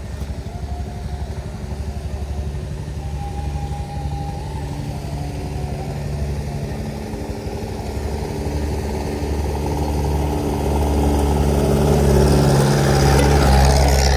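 Motor vehicle engine running steadily, growing louder over the last few seconds with more tyre and road hiss.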